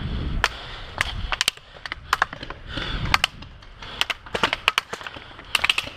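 Airsoft guns firing: sharp, irregular cracks, single shots mixed with quick clusters of two to four, thickest near the middle and the end.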